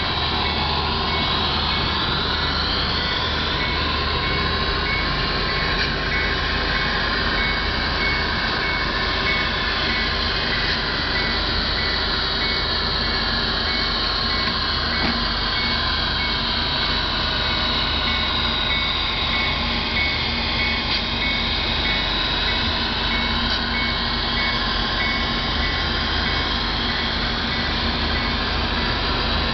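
Steady running noise of HO scale model trains on a club layout, a continuous mechanical hum and rumble with no breaks, with a faint high beep pulsing about twice a second throughout.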